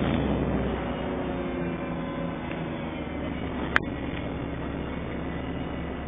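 Alexander Dennis Enviro300 bus heard from inside the passenger cabin, its engine running steadily with a low hum under road and cabin noise. A single sharp click about four seconds in.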